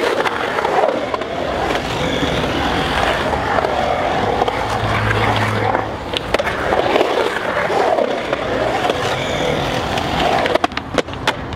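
Skateboard wheels rolling and carving across a concrete bowl, a steady rolling roar that rises and falls in pitch with the rider's speed. There are a few sharp clicks near the end.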